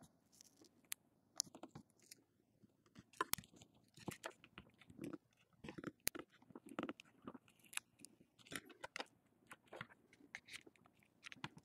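Faint, irregular small clicks and crackles from a plastic pry tool scraping and levering under a phone's glued-in lithium polymer battery as it is slowly wedged up.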